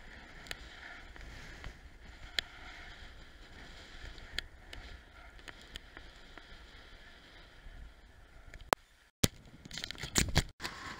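Bicycle riding along a gravel cycle path: steady wind and tyre rumble on a handlebar-mounted camera, with scattered sharp clicks and rattles from bumps. Near the end comes a cluster of loud rattling clicks, and the sound cuts out briefly twice.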